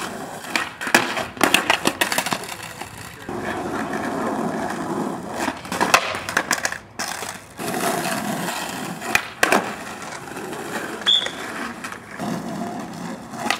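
Skateboard wheels rolling on rough asphalt, broken several times by sharp snaps and clacks of the board being popped and landing in flat-ground tricks.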